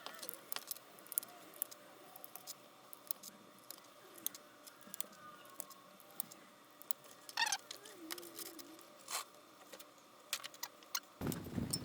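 Scattered small clicks and taps of potentiometers, parts and tools being handled on a synth circuit board at the bench, over a faint steady hum. Just before the end, louder and busier handling noise sets in.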